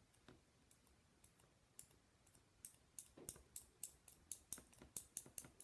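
A small magnet stroked repeatedly along a metal spoon in one direction to magnetize it, giving faint light clicks and scrapes. They come only now and then at first, then settle into about three to four a second from about halfway.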